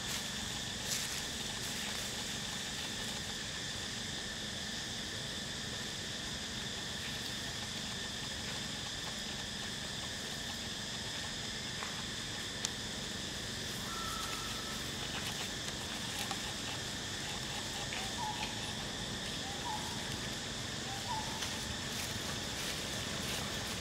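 Steady insect chorus that holds the same pitches throughout, with a few short chirps in the second half and an occasional faint click.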